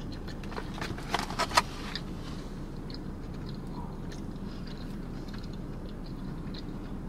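Crunchy bites and chewing on a breaded Nashville hot mozzarella stick, with a quick cluster of sharp crunches about a second in and then faint mouth sounds. Under it, a steady low hum of the car cabin.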